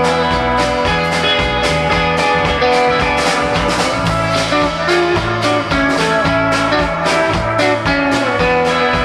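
Live band playing an instrumental passage: electric guitar over bass guitar and drums with a steady beat.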